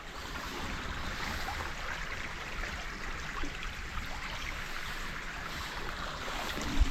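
Stream flowing: a steady rush of running water.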